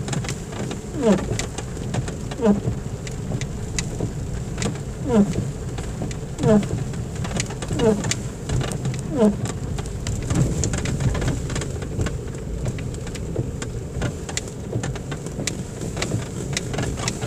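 Car windscreen wipers sweeping across the wet glass, each stroke giving a short squeak that falls in pitch, about every second and a half; the squeaks stop about nine seconds in. Throughout there is rain ticking on the windscreen and the steady low rumble of the car rolling on a dirt road.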